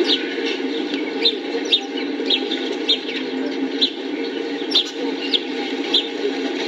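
Small birds chirping, short sharp calls about twice a second, over a steady low background noise.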